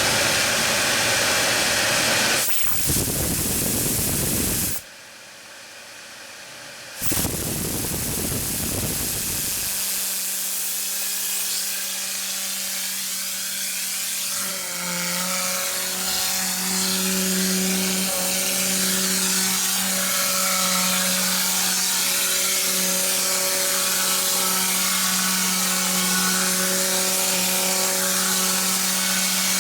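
Compressed-air cyclone vacuum gun running: a loud rush of air, cut off briefly twice in the first third. After that it runs steadily, a hiss with a low steady hum under it.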